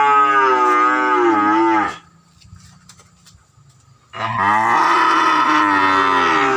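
Cattle mooing: a long moo that ends about two seconds in, dropping in pitch as it closes, then after a short pause another long moo begins about four seconds in.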